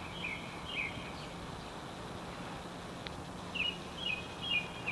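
A small bird chirping in two short phrases of three or four notes each, one in the first second and one near the end, over a steady low outdoor hum.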